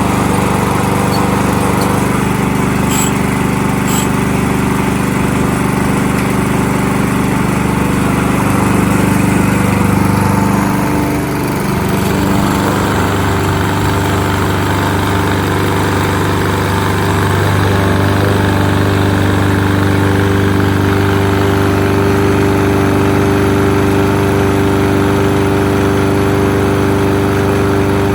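Kohler XT-675 single-cylinder engine of a Yardworks push lawn mower running steadily on its first start after winter storage. Its note shifts about twelve seconds in, then holds steady again.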